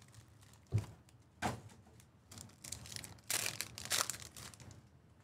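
Prizm football blaster box and card-pack wrappers being handled, crinkled and torn open, with one thump under a second in and a denser stretch of crinkling a little past the middle.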